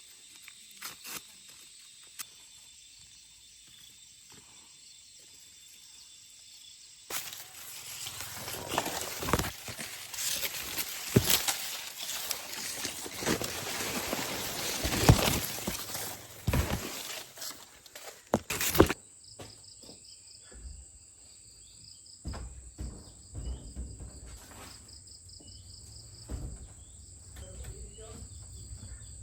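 Loud rustling and crackling for about twelve seconds, then insects chirping in a steady pulsing trill with scattered clicks.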